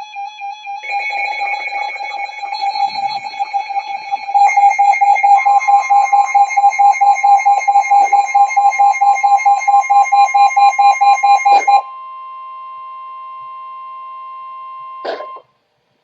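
Several weather alert radios sounding their warning alarms together: layered, rapidly pulsing electronic beeps at about four a second, getting louder about four and a half seconds in. Near twelve seconds the beeping stops, leaving a steady two-note alert tone that cuts off with a click about three seconds later.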